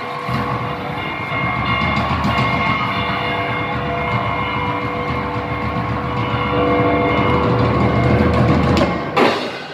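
Live circus show music played over the sound system: held tones over a dense low drum rumble that grows louder, then cuts off about nine seconds in with a sharp, loud hit.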